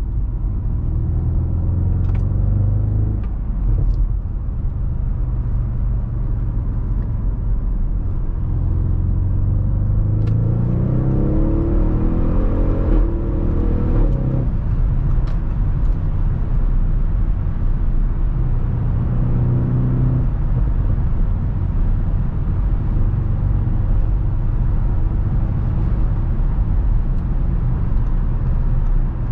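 2015 Audi RS6 Avant's twin-turbo V8 running under way, a steady low rumble. About ten seconds in the engine pulls up in revs for a few seconds, then the pitch drops away at about fourteen seconds.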